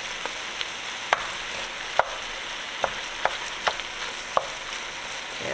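Ground turkey sizzling in an enameled cast-iron Dutch oven as a wooden spoon breaks it apart and stirs it, with irregular sharp knocks of the spoon against the pot.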